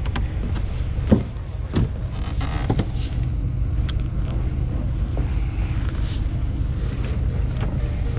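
A steady low mechanical hum under a few short sharp knocks, the loudest about a second in.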